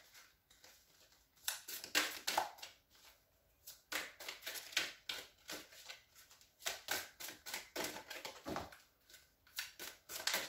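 A deck of tarot cards being shuffled by hand: several bursts of rapid soft clicks and flicks as the cards slide and slap against each other, with short pauses between the bursts.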